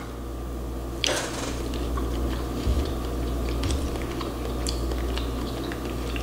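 Cooked crab legs being cracked and pulled apart by hand: a sharper crack about a second in, then scattered small clicks and crackles of shell, over a steady low hum.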